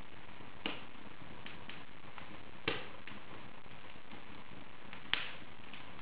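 Wood fire crackling in an open fireplace: a steady hiss with scattered small crackles and three sharper pops, the loudest two about midway and near the end.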